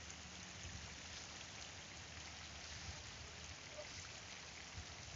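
Faint steady hiss with a low rumble underneath.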